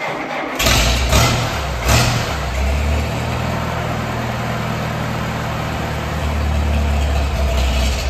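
Massey-Harris 44 tractor engine catching about half a second in, with a few sharp bursts, then settling into a steady low idle that grows a little louder near the end.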